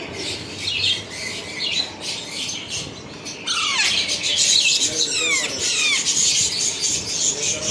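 Parrot squawking and calling in shrill calls that fall in pitch, sparse at first and then a busy run of overlapping calls from about halfway through.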